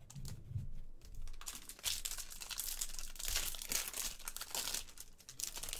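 Foil wrapper of a trading card pack being torn open and crinkled by hand: a dense crackle that starts about a second and a half in and stops shortly before the end.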